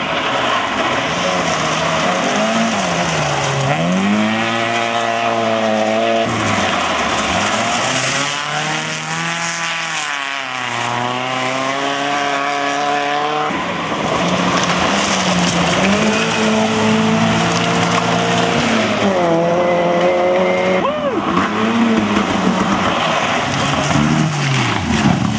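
Rally cars at speed on gravel forest stages, one after another: engines revving up and dropping in pitch through gear changes as each car approaches and passes, with abrupt cuts between cars.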